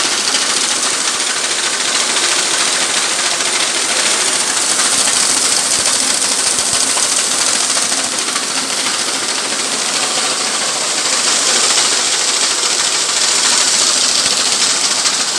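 Grain auger running and barley pouring from it onto the heap in the grain store: a steady, loud rushing hiss.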